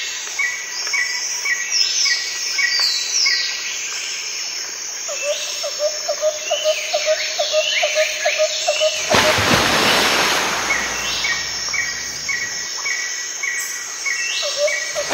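Jungle soundscape of bird and insect calls played in a dinosaur exhibit: regularly repeating chirps, sweeping whistled calls and a fast chirping trill. A loud burst of rushing hiss comes about nine seconds in and lasts roughly three seconds.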